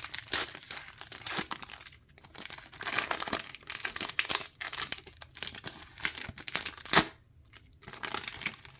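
A trading-card pack wrapper being torn open and crinkled in the hands, with irregular crackling throughout. There is a sharp snap about seven seconds in.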